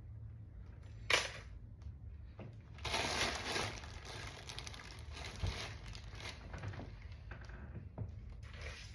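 Handling noise, rustling and crinkling: a sharp crinkle about a second in, a longer rustle around three seconds in, and small clicks and taps in between.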